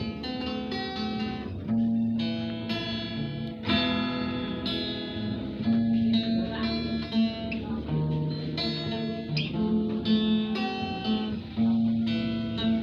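Instrumental music led by plucked guitar: a run of picked notes and chords over a steady low bass line, with no singing yet.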